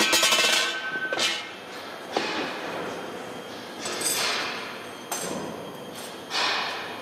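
A thin stainless steel cone knocks against a steel bench and rings briefly. Then comes a metal rod scraping inside the cone, four rasping strokes about a second apart.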